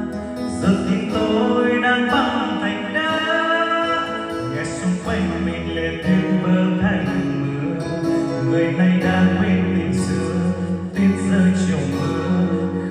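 Instrumental break of a slow Vietnamese pop ballad: a melodic lead line over plucked guitar and a sustained bass, with no sung lyrics.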